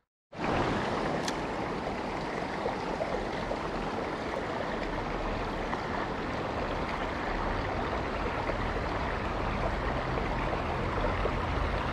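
Shallow creek water running steadily over rocks.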